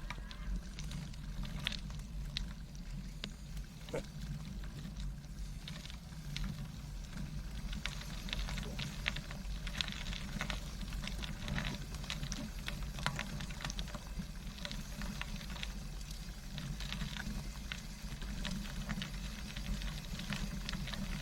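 Tandem bicycle rolling over a rough trail: a steady low rumble with many sharp clicks and rattles from the bumps, thickest in the middle and near the end.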